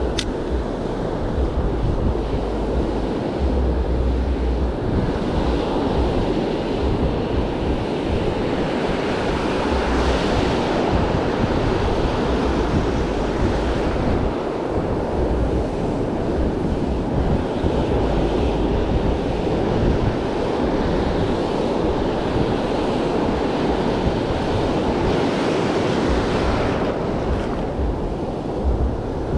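Ocean surf washing up the beach, swelling louder as waves break about ten seconds in and again near the end, with wind buffeting the microphone.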